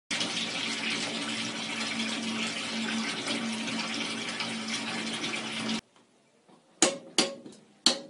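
Water gushing steadily from the filler hose into the stainless steel washtub of a 1970s Hoovermatic De-Luxe T5004 twin-tub washing machine, the tub filling for a wash. The rush stops abruptly about three-quarters of the way through, and three sharp clicks follow near the end.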